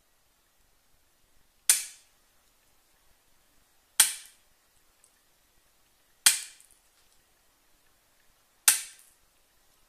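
Hand key-cutting pliers snapping shut through a metal key blank four times, about every two and a half seconds. Each cut is a sharp crack that dies away quickly, one notch cut into an HU100 key blank.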